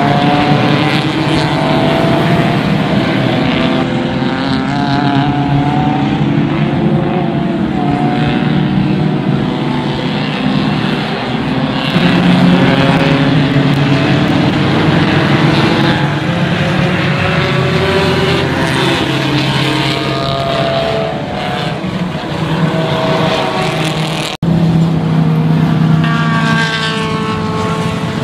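A pack of race cars' engines heard from trackside, several at once, revving up and down as the cars accelerate and shift through the corners. The sound breaks off abruptly about three-quarters of the way through and picks straight up again.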